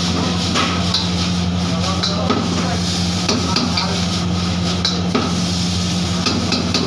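Noodles stir-frying in a hot wok: continuous sizzling with frequent clicks and scrapes of the steel ladle and spatula against the wok, over a steady low hum.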